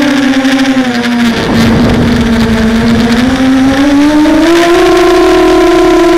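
Hexacopter's electric motors and propellers whining, the pitch dropping about a second in and climbing again around four and a half seconds in as the throttle changes while the craft fights gusty wind. A rush of wind noise comes in briefly when the pitch is at its lowest.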